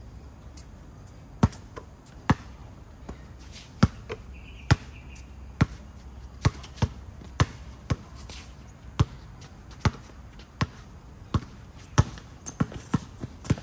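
A basketball being dribbled: single sharp bounces about one every second, coming quicker near the end.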